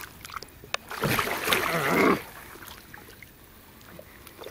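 Water splashing and sloshing for about a second, starting about a second in, as a large wels catfish held by the jaw at the boat's side thrashes; then softer water movement.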